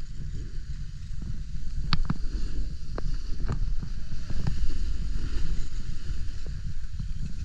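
Wind rumbling on the microphone during a ski run, with a hiss of skis sliding on snow and scattered sharp clicks.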